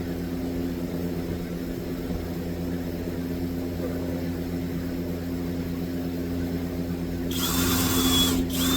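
A steady low machine hum, then near the end a power drill driving a screw into a 2x4: one run of about a second, followed by a brief second burst.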